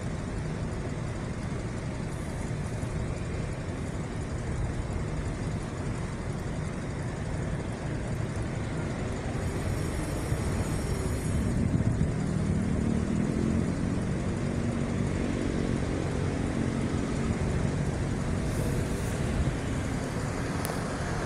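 Road and traffic noise from a moving vehicle. About halfway through, a steady engine hum joins in and the sound gets a little louder.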